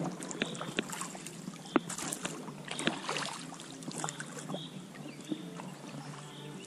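Oars working the water beside an inflatable PVC boat: splashing and dripping with scattered sharp knocks of the oars, the loudest a little under two seconds in.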